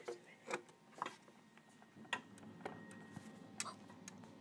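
Light plastic clicks and taps of small toy dolls being handled and set down on a tabletop, about six at uneven intervals.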